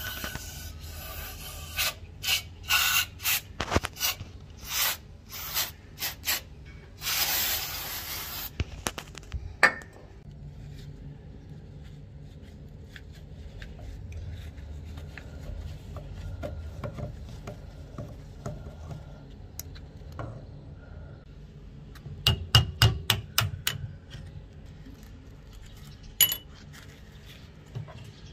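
Aerosol spray can hissing in a string of short bursts onto a rusty steel gun receiver, with one longer spray, over the first nine seconds. Then quieter rubbing and scraping of tools on the metal, and a quick run of about eight sharp metallic taps a little after twenty seconds in.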